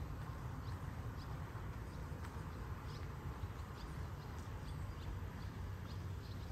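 Footsteps of a person walking at a steady pace, heard as light clicks about twice a second over a steady low rumble.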